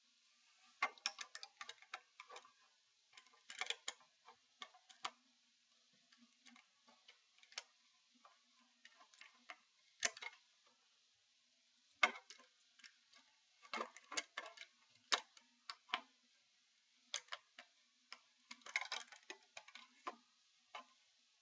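Faint, irregular clusters of light clicks and taps from small plastic LEGO pieces being handled and pressed onto a brick-built model.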